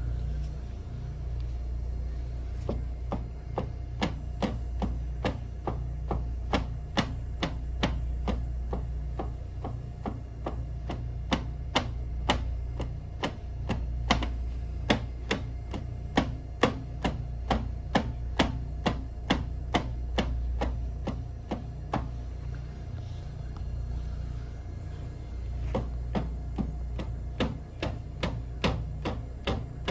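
Rapid repeated instep kicks (haisoku geri) for shin and foot conditioning, landing as sharp slaps about two or three a second, some harder than others, with short breaks near the middle and later on. A steady low hum runs underneath.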